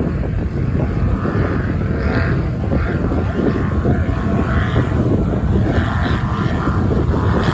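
Racing powerboat engines running at speed, a steady loud engine noise whose pitch rises and falls slightly.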